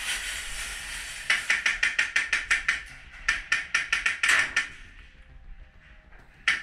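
Airsoft gun firing two rapid strings of sharp shots, about eight a second, with one more single shot near the end.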